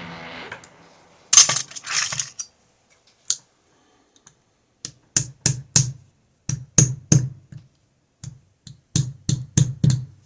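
Sharp metallic taps and clicks from a euro lock cylinder being handled and knocked while it is taken apart. A brief rattle comes about a second in, then a dozen quick taps in small groups of two to four through the second half.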